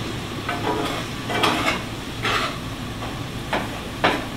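A utensil stirring and scraping in a frying pan as flour is mixed into onions and garlic sizzling in bacon and sausage grease, thickening it into a roux; irregular scrapes over a steady sizzle.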